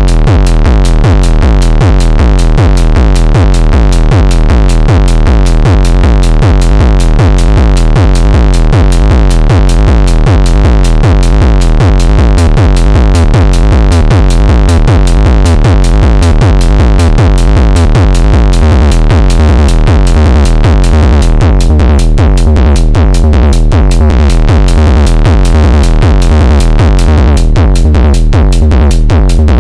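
SSF Ultra Kick Eurorack kick-drum synthesizer module playing a fast, steady run of deep, distorted kicks. The tone of the kicks shifts as its knobs are turned, thinning out twice in the second half.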